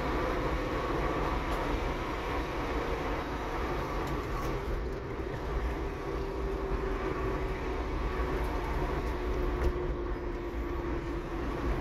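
A car driving steadily on a city street: a constant low engine and tyre rumble with a faint hum that drifts slowly lower in pitch.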